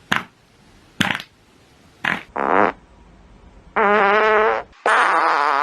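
Fart sound effects: four short puffs about a second apart, then two longer, drawn-out pitched farts with a wavering tone, the second starting about five seconds in and still going at the end.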